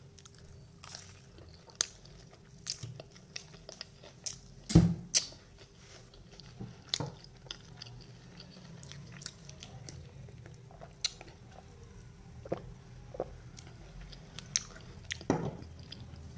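A person chewing and biting into bread pakora, the gram-flour-battered fried bread, dipped in sauce. Short crisp clicks come irregularly throughout, with a louder thump about five seconds in and another near the end.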